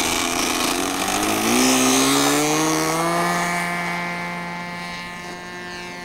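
Small model-airplane engine opening up to full throttle for a takeoff run, its buzzing pitch rising over the first few seconds, with a rushing hiss during the ground run. The pitch then holds steady while the sound slowly fades as the plane climbs away.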